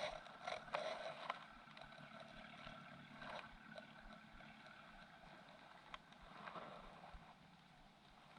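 Faint seaside ambience: a low steady hiss with a few light clicks and taps, a little louder in the first second or so.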